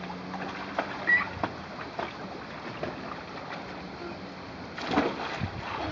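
Swimming-pool water sloshing with small splashes, and a louder splash about five seconds in as a child in a float ring jumps into the pool.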